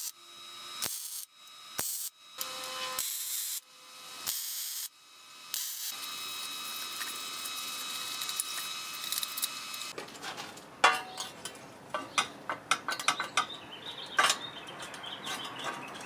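TIG welding arc on steel plate: about five short tack welds in the first six seconds, each a brief hiss with a steady whine, then one longer weld of about four seconds. After that, a run of sharp clicks and knocks as the metal parts are handled.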